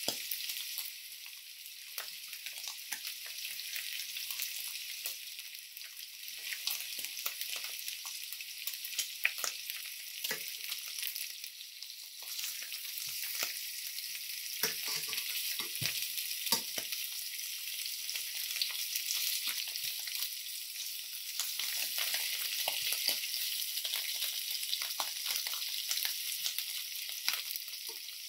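Beef short ribs searing in hot fat in a stainless steel pan: steady sizzling with crackling pops. Around the middle come a few knocks as the ribs are turned with metal tongs.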